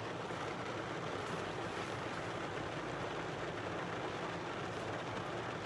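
Steady background noise: an even hiss with a faint low hum and no distinct events.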